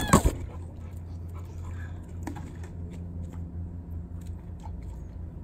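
Dog biting and mouthing a plastic water bottle: a loud crunch right at the start, then scattered faint clicks over a steady low hum.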